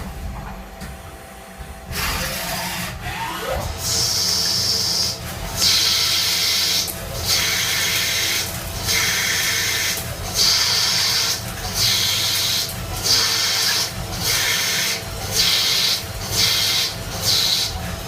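CNC machine tool cutting metal in a run of short, evenly repeated passes: a hissing scrape comes roughly every second and a half over a steady motor hum. The passes start about four seconds in.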